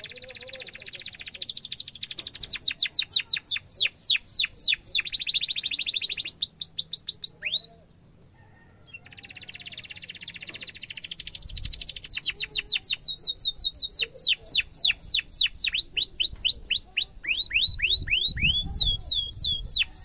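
Yellow domestic canary singing a long song: buzzy rolls alternate with fast trills of down-slurred notes, about five a second. The song breaks off for about a second partway through, then resumes.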